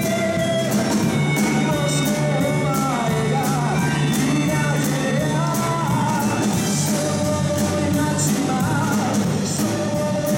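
Live band playing a pop-rock song: a male singer over electric guitars and a drum kit keeping a steady beat with cymbal hits. The hall's acoustics make the mix muddy and hard to make out.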